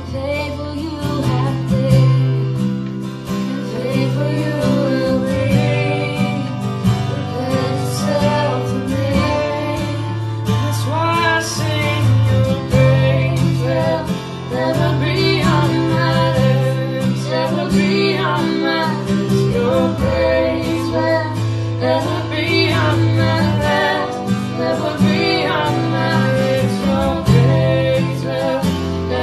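Acoustic guitar strummed, with singing over it, in a slow worship song.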